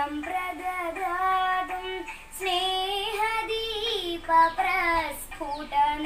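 A young girl singing a slow melody solo, holding long notes that bend between pitches.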